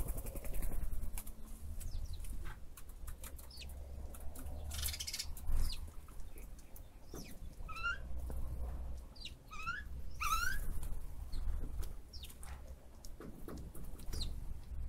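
A bird calling: three short runs of quick rising chirps about halfway through, with a few fainter single chirps around them, over a low rumble of wind on the microphone.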